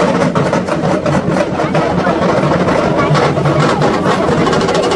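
Loud, steady din of a dense crowd.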